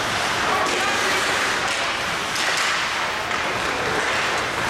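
Ice hockey game sounds in a rink: a steady wash of arena noise, with skate blades scraping the ice and short sharp clicks from sticks and puck now and then.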